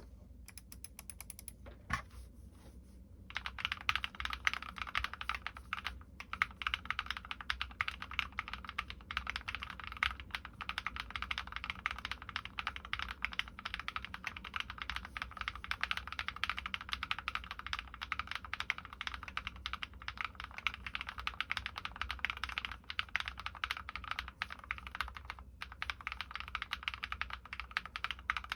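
Drop+OLKB Planck V6 ortholinear mechanical keyboard with Krytox-lubed linear switches (MX Black housings, Kailh Red stems) and MT3 keycaps being typed on. A few scattered keystrokes at first, then fast, continuous typing from about three seconds in.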